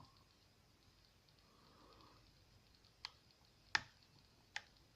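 Lock pick working the pin stack of a euro cylinder lock under tension: a faint scrape, then three sharp, quiet clicks of the pins and pick about a second apart near the end.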